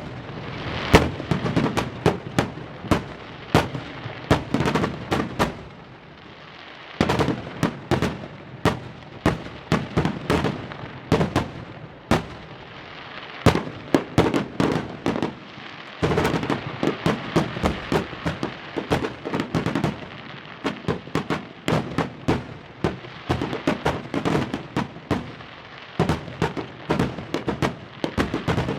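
Fireworks going off: a dense, irregular run of sharp bangs and cracks, several a second, in bursts broken by brief lulls.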